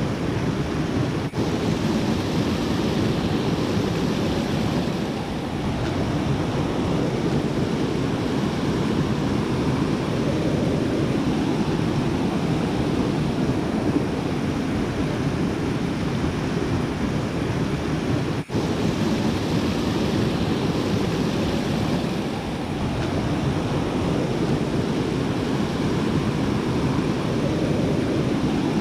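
Steady rush of river water pouring over flat sandstone ledges in shallow cascades, a loud continuous noise that cuts out for an instant twice, once about a second in and once a little past the middle.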